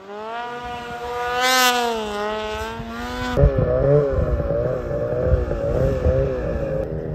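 Snowmobile engine revving hard through deep powder, its pitch rising and then falling. About three and a half seconds in it gives way to a snowmobile climbing a steep slope, its engine note held high and wavering.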